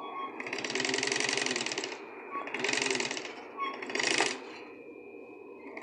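Sewing machine stitching a topstitch seam through upholstery fabric in three runs: a longer run of about a second and a half, then two short runs with brief pauses between.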